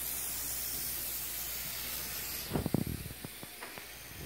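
A steady high hiss. About two and a half seconds in, it is broken by a quick cluster of sharp clicks and knocks that thin out over the next second.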